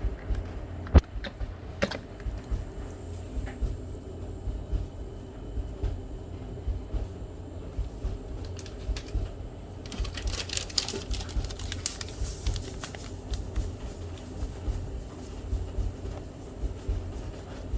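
Kitchen handling noise with a sharp knock about a second in. From about ten seconds in, a seasoning shaker rattles dryly as seasoned salt and black pepper are shaken out.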